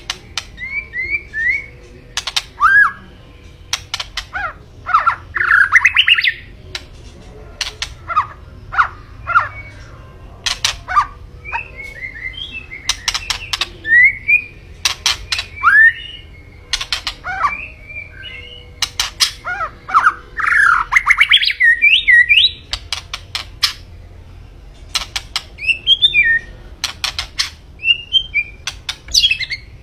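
White-rumped shama singing almost without pause: varied whistled phrases that glide up and down, mixed with sharp clicks and a couple of longer harsh, rasping trills.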